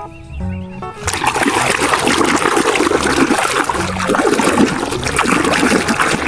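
Water running and splashing over a muddy plastic toy as it is rinsed clean. It starts about a second in and keeps going steadily, with background music underneath.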